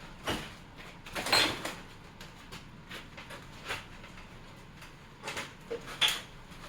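Boards of a nailed wooden box being pried with a crowbar: several short creaks and scrapes of wood and nails shifting, the loudest about a second and a half in and another near the end. The nails are loose but keep catching back in the wood.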